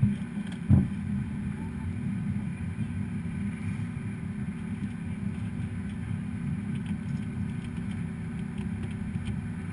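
Gulfstream G550 cockpit noise while taxiing: a steady low rumble, with one brief thump just under a second in.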